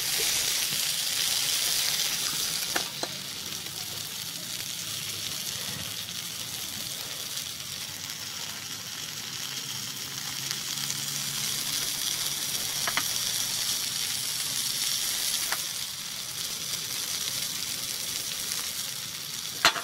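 Two Italian sausages sizzling steadily in hot oil in a skillet, with a few faint pops.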